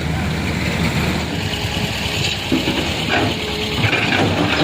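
Truck engine running steadily, with louder noisy bursts in the second half.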